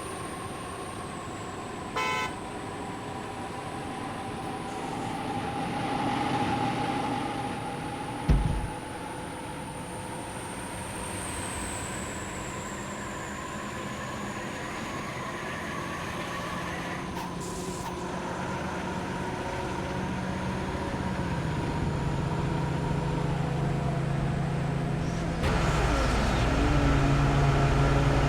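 Road traffic passing: steady engine and tyre noise, with a short horn beep about two seconds in and a thump about eight seconds in. A louder, deeper engine comes in suddenly near the end.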